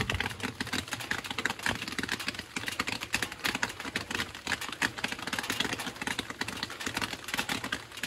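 Rain falling on an umbrella overhead: a dense, irregular run of small ticks that keeps up steadily.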